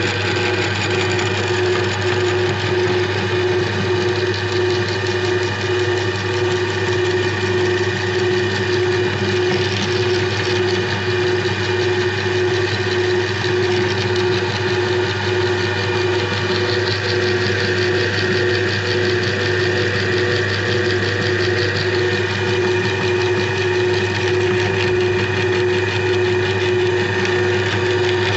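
Electric meat grinder's motor running steadily with a constant hum.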